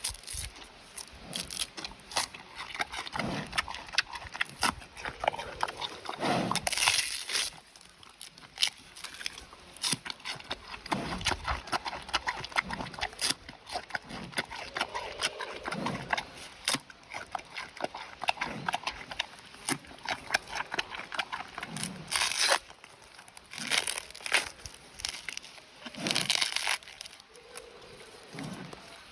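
Giant panda chewing bamboo: rapid crunching and cracking of the stalks, with a few louder snaps and crunches now and then.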